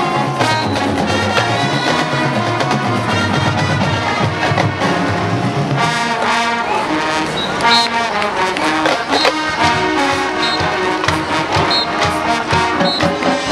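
High school marching band playing its field show: brass, led by trombones and trumpets, over drums, growing fuller and brighter about halfway through.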